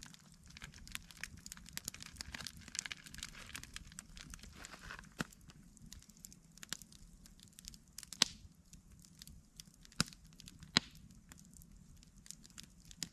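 Campfire crackling, with irregular sharp pops, a few standing out loudly near the middle and later on.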